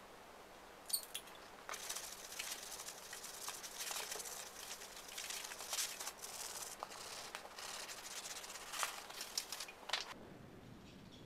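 A sanding sponge rubbed back and forth over the painted steel edge of a John Deere X300 mower deck to wear off a paint scuff, a continuous scratchy scrubbing that stops about ten seconds in. A couple of sharp clicks come about a second in.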